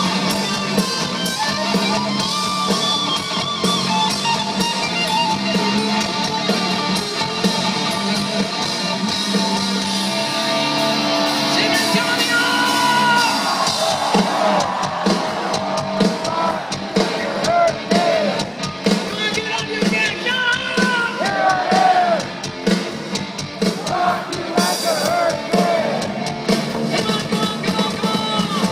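Rock music with electric guitar and drums. A singer's voice comes in about halfway, in places yelled.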